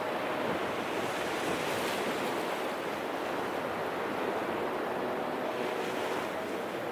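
Sea waves washing onto the shore: a steady rush that swells about two seconds in and again near the end.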